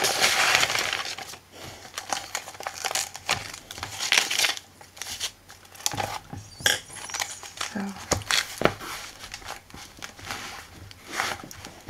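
Paper rustling and crinkling in many short, irregular bursts as loose sheets of printed book paper and brown packaging paper are shuffled, slid and pressed flat by hand.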